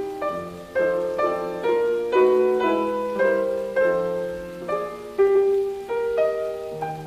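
Solo piano music: a slow melody with chords, about two notes a second, each note struck and left to ring out.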